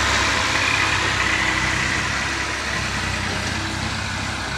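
Tractor's diesel engine running steadily as it pulls a heavily loaded trailer, slowly fading as it draws away.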